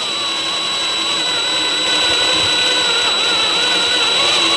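Cordless drill running at low speed, a 3/16-inch high-speed-steel bit cutting into thick steel bar stock wetted with cutting oil, with the bit close to breaking through. The motor gives a steady high-pitched whine, with a lower tone that wavers slightly under load.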